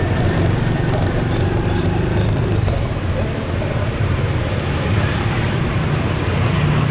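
Motorbike riding in dense city traffic: the bike's engine and the surrounding motorbikes and cars make a steady rumble with road and wind noise.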